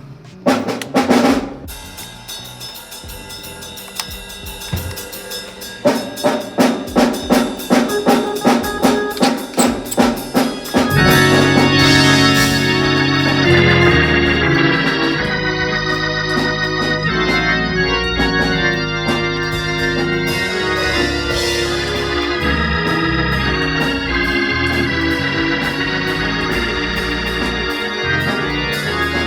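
Hammond B3 organ played through a Leslie 147 speaker cabinet. Short chords repeat about twice a second. About eleven seconds in, full sustained chords with deep low notes take over.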